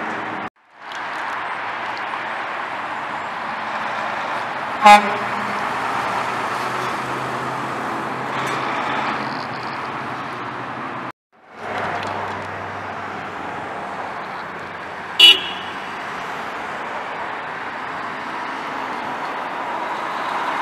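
Heavy diesel trucks driving past on a street, with steady engine and tyre noise, and two short, loud truck horn toots, one about five seconds in and one about fifteen seconds in. The sound drops out briefly twice.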